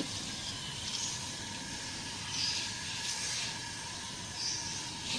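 Steady hiss of a pot of water and herbs heating on a stove, working back toward the boil, with a few brief louder rushes of hiss.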